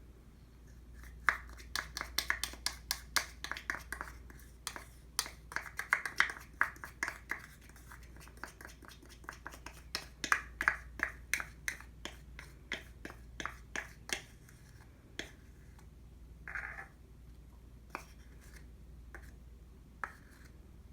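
A utensil clinking against a bowl in quick repeated strokes, about four or five a second, as when beating a batter. After about 14 s the strokes thin out to a few scattered taps.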